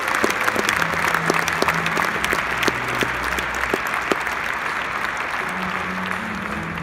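Large seated audience applauding: a steady wash of clapping with a few sharper individual claps standing out, easing slightly toward the end.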